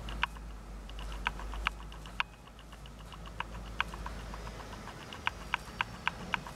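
A series of short, sharp clicks, spaced irregularly and then in a quicker run of about four a second near the end, with fainter quick ticks between them over a low steady hum.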